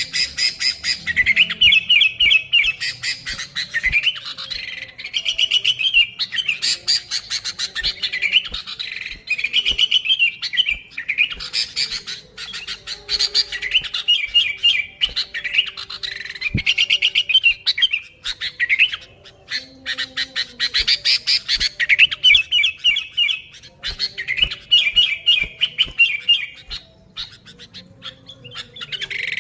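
Sooty-headed bulbul (kutilang) singing busily: one quick, chattering phrase after another, with only brief pauses between them.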